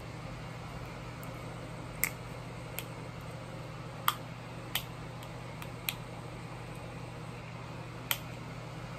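Plastic vinegar bottle being handled and opened: a handful of short, sharp plastic clicks from the cap and bottle neck, spaced irregularly, over a steady low hum.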